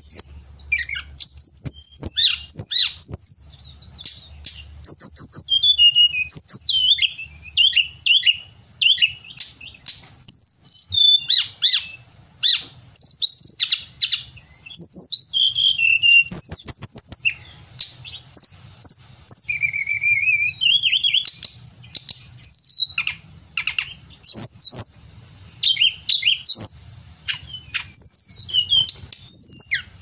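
Caged hill blue flycatcher (tledekan gunung) singing continuously: rapid, varied high whistled phrases that rise and fall, separated by short pauses.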